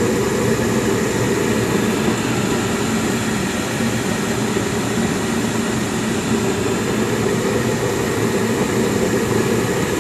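Gas furnace running on emergency heat, its burners and blower giving a steady, even rushing noise.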